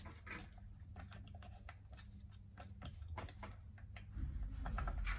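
Faint, irregular clicks and light taps of metal gear-case parts being handled and fitted into an ATV's aluminium gear casing, over a low steady hum.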